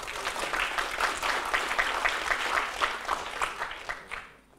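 Audience applauding, a dense patter of many hands clapping that fades out about four seconds in.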